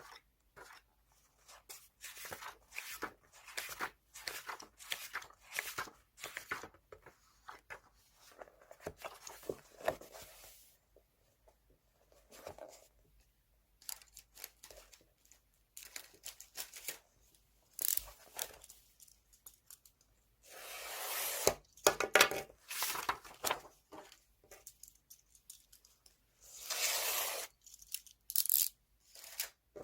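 Magazine paper being torn and handled: a run of short rips and rustles, with several longer tears.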